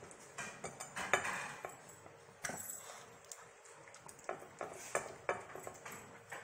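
A small dog eating from a ceramic plate on a tile floor: irregular clinks and knocks of the plate as its muzzle pushes and licks it, mixed with the dog's gobbling and licking.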